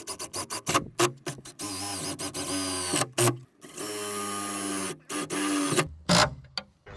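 Cordless drill/driver running a screw into an L bracket on a cabinet panel: two steady runs of about a second and a half and a second, with short clicks of the bit and hardware before and after.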